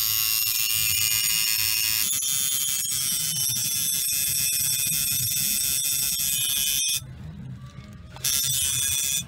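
Electric tattoo machine buzzing steadily while the needle works the skin. It stops for about a second near the end, then starts buzzing again briefly.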